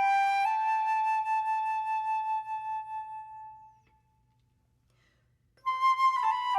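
Solo flute playing a slow chant-like melody: a long held note dies away, a brief rest follows, and a new phrase begins near the end.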